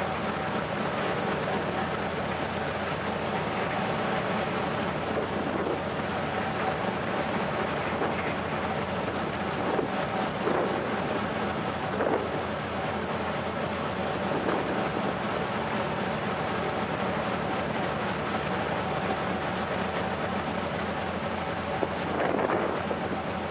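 Passenger ferry's engines running with a steady hum, with wind on the microphone out on the open deck.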